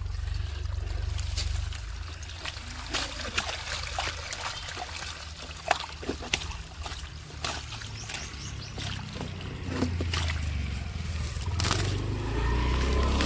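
Water trickling and splashing, with irregular drips and plops over a steady low rumble.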